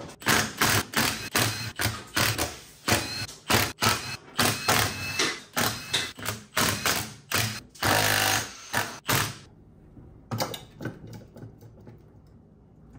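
Quick run of metallic clicks and clanks, two or three a second, from hand tools opening up a riding mower's transmission case; they stop about nine seconds in, leaving a few fainter clicks.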